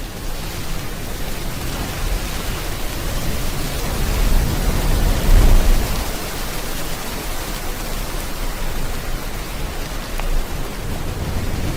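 Steady rain together with the low rush of sea waves, swelling louder once about five seconds in.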